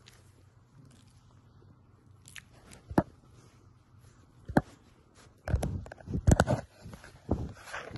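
A Belgian Malinois puppy chewing and tugging at fabric: a few sharp clicks, then a close run of louder knocks and rustles in the second half.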